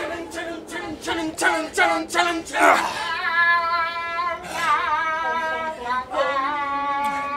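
A woman's voice singing unaccompanied: about three seconds of short sung notes, then three long held notes with a slight vibrato.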